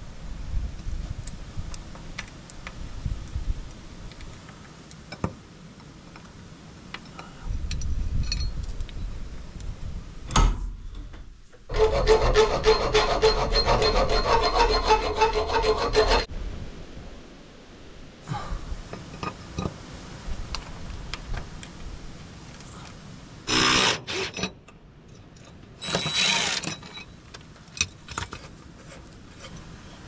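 Metalworking on a small steel bracket: a power tool cuts into the metal for about four seconds midway, amid clinks and tool handling. Two short bursts of a tool come near the end.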